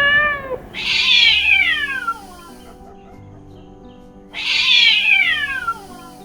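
Kitten meowing: a short meow that rises and falls at the start, then two long, high meows that fall in pitch, about three and a half seconds apart.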